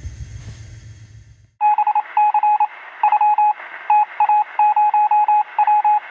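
A low rumble for about a second and a half, then a single-pitched electronic beep keyed on and off in an irregular run of short and long beeps, like Morse code.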